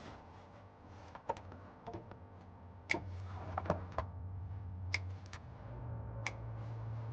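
Scattered sharp clicks and light taps from hands working a wire along the underbody lines, over a low steady hum.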